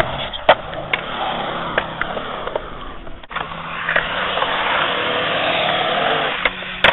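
Skateboard wheels rolling over concrete, a steady rush that swells in the second half, with several sharp clacks of the board.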